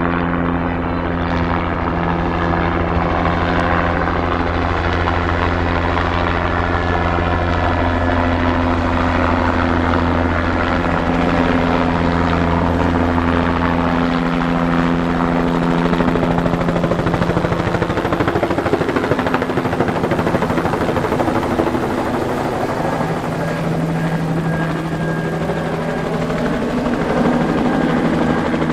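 Two-bladed light helicopter flying low overhead, its rotor and engine running steadily and loudly. In the second half the pitch glides down and back up as it passes close.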